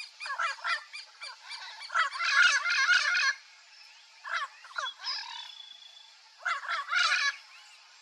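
Turquoise-fronted amazon parrot calling in bursts of rapid, chattering notes: a short burst early, the longest and loudest run from about two to three seconds in, a few single calls after it, and another loud burst near the end.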